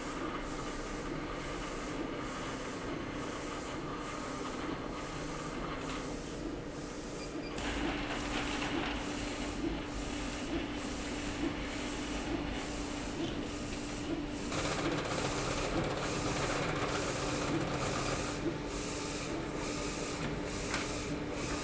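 DTF printer running, a steady mechanical hum with a regular pulse a little more than once a second. It gets louder and busier about a third of the way in.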